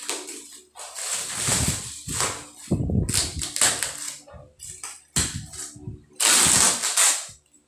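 Packaging being handled: plastic wrap rustling and crinkling while tape straps around a cardboard box are cut and pulled loose, in irregular scrapes and rustles. A louder stretch of about a second comes near the end.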